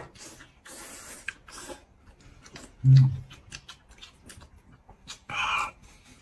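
A person slurping and chewing noodles in broth, with many small wet mouth clicks and a few short slurps. About three seconds in comes a short low 'mm' hum, the loudest sound.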